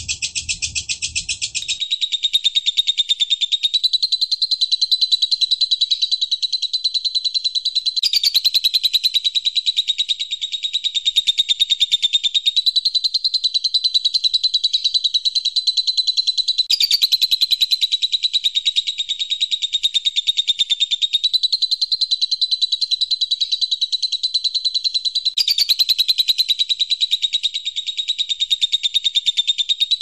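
Eurasian tree sparrows chattering fast and without pause in a fight, as a loud, dense stream of high chirps. The recording repeats about every four seconds, as a looped training track.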